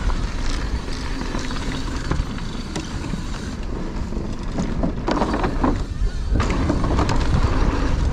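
Wind rumbling on the microphone of a mountain bike riding downhill, over tyre noise on dirt, with scattered clicks and rattles from the bike on rough ground.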